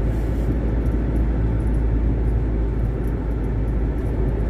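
Car moving slowly, heard from inside the cabin: a steady low rumble of engine and road.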